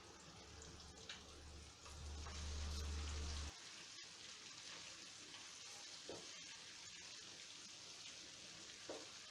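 Battered chicken pieces deep-frying in hot oil, a steady sizzle. A low hum, the loudest sound, swells about two seconds in and cuts off suddenly at about three and a half seconds.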